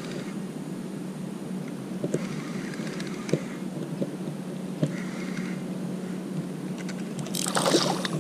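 Spinning reel being cranked to retrieve a lure, with a few faint clicks, then near the end a loud splash as a pike strikes the lure at the surface.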